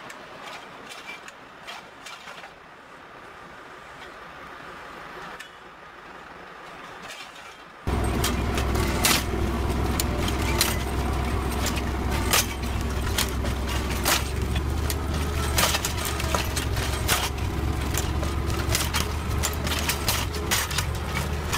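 A quiet stretch with a few light metal clicks, then from about eight seconds in a tractor engine running steadily under load while a tractor-mounted, hydraulically driven disc hoe works the soil between orchard trees, with frequent metallic clicks and rattles from the hoe and its hitch.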